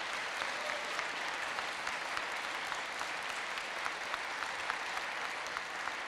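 A congregation applauding steadily, many hands clapping at once.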